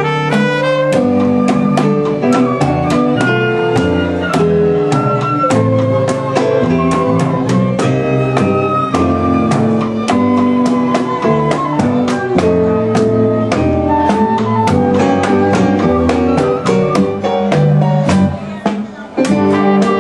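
Cuban charanga band playing a danzón live: ensemble music of melody instruments over piano and bass, with sharp percussion strokes keeping a steady beat.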